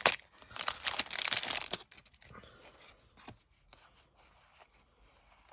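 Foil Pokémon booster pack wrapper being torn open and crinkled for about two seconds, then only faint light rustles and clicks of handling.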